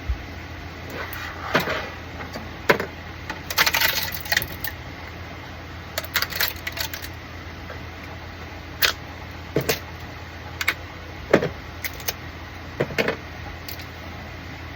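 Small 3D-printed plastic parts clicking and snapping as they are broken off their supports and handled: irregular sharp clicks, some in quick clusters, over a steady low hum.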